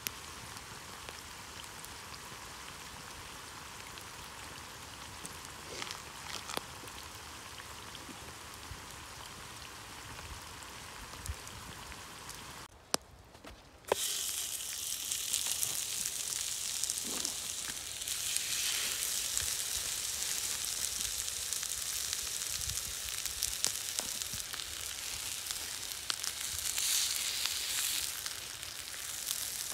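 Food frying in hot fat, a steady sizzle. About 13 seconds in it drops away for a moment and comes back louder.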